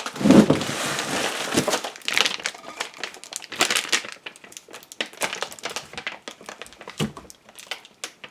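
Packing material being crumpled and crinkled by hand: dense rustling for the first couple of seconds, then scattered crackles and clicks that thin out.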